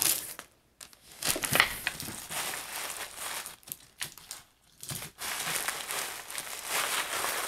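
Clear plastic wrapping on a new handbag's handles crinkling as the bag is handled, in irregular rustling bursts with short pauses.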